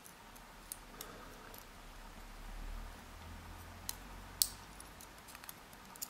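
Metal tweezers clicking against the plug of an Abus EC750 dimple lock and the small steel driver pins being picked out of it. A handful of short, sharp ticks are scattered through, the loudest about four and a half seconds in.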